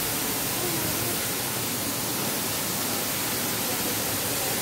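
High-pressure water jet from a pressure-washer wand spraying a building wall, a steady hiss of spray.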